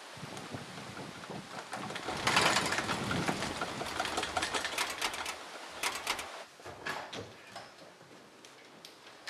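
Small wooden-bladed windmill on a pole rattling as it spins fast in the wind: a rapid clatter that builds over the first two seconds and thins out to scattered clicks in the last few seconds.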